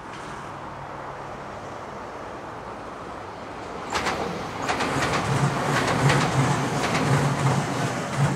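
JR West 227 series electric train approaching and passing. Its rumble builds, then from about four seconds in a run of wheel clacks over the rail joints comes in as it goes by.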